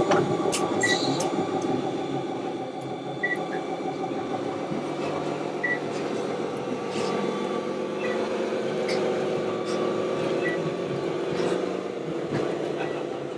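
Radio-controlled scale model trucks and construction machines running: a steady motor-and-gear whine. A short high beep repeats about every two and a half seconds, like a model's reversing warning beeper.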